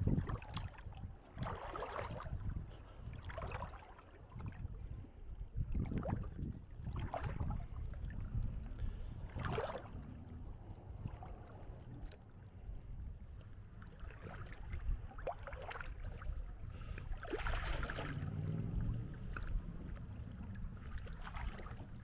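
Small waves lapping and washing at the shoreline in irregular splashes every second or two, over a steady low rumble.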